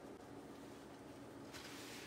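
Quiet kitchen room tone with a faint steady hum. About one and a half seconds in, a soft rustling hiss begins as the foil-covered baking pan is handled out of the oven.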